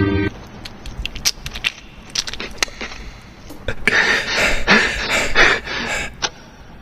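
Scattered small sharp clicks and ticks for the first few seconds, then a person breathing heavily in ragged, strained breaths for about two seconds.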